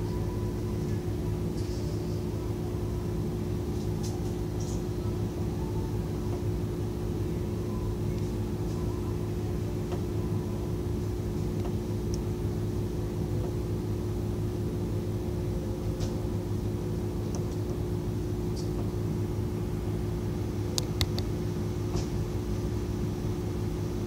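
A steady low machine hum with a few faint clicks now and then.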